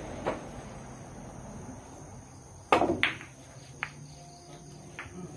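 Pool cue and balls during a shot: a light click about a quarter second in, then a loud sharp clack of balls near the middle followed quickly by a second, and a few lighter clicks as the balls run on.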